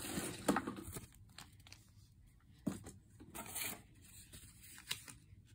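Paper card and packaging being handled on a carpet: a few short rustles and scrapes, the loudest in the first second.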